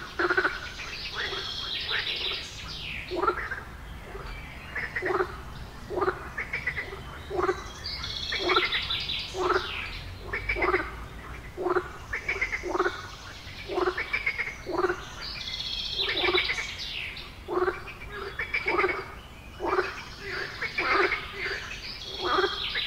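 Short animal calls repeating about once a second, with bursts of higher chirping every few seconds.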